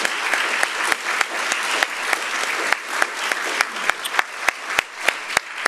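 Large audience applauding steadily, the dense clapping thinning to a few scattered claps near the end.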